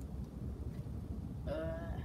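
Steady low background rumble of room noise, then about one and a half seconds in a brief vocal sound from a boy beginning to answer.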